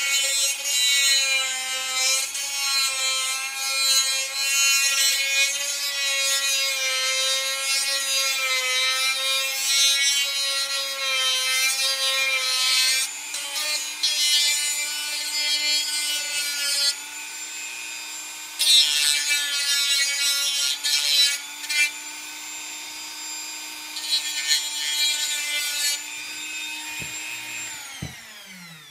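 Dremel rotary tool running at high speed with its whine wavering as the spinning bit sands and contours the edge of a Kydex sheath, with gritty sanding noise that swells each time it bites into the plastic. Near the end it is switched off and its pitch falls as it spins down.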